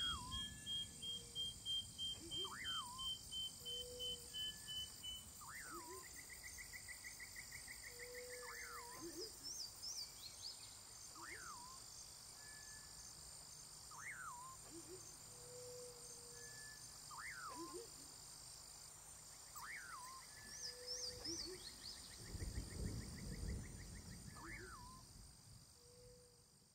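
A bird calling over and over, a short quick up-and-down note about every second and a half, over a steady high insect buzz; the sound fades out near the end.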